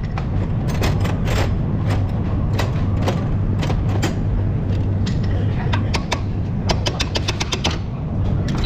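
Ratchet wrench clicking in quick runs of several clicks at a time as the stabilizer link's upper nut is undone, over a steady low hum.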